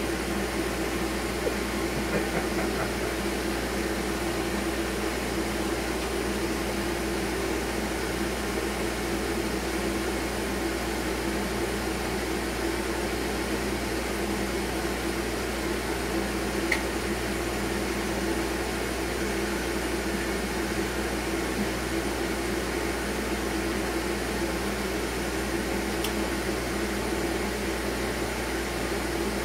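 Workshop dust collection system running, a steady rush of air with a constant hum, together with a band saw running as a board is ripped into strips.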